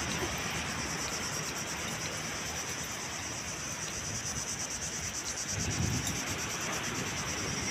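A steady, high-pitched insect chorus with a fast pulsing, over a hiss of wind and surf. A gust of wind buffets the microphone a little over two-thirds of the way through.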